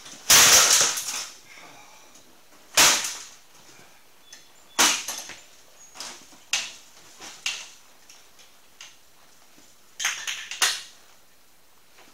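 Metal clattering and banging as a motorcycle scissor lift and wheeled dolly are shoved and set down on a concrete floor against a fallen motorcycle. A loud clattering crash lasting about a second comes just after the start, then single knocks and clanks every second or two.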